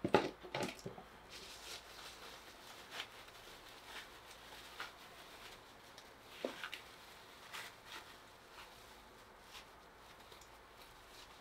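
Thin plastic bag rustling and crinkling in short, scattered bursts as it is worked off a perforated metal strainer screen, with a few sharper knocks of cardboard packaging being handled in the first second.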